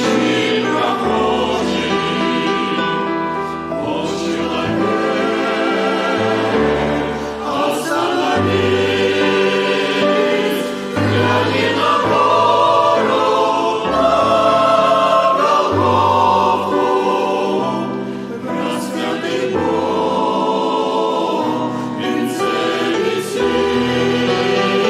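Choir singing a Christian song in sustained, slow phrases with vibrato, over instrumental accompaniment with a bass line that changes note every second or two.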